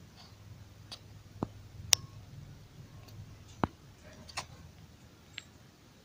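Handling noise of a hand-held camera: about six sharp clicks and taps at uneven intervals, the loudest about two seconds in, over a faint low rumble.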